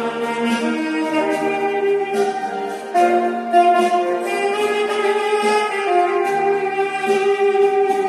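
Saxophone playing a melody of held notes over a recorded backing track with chords underneath.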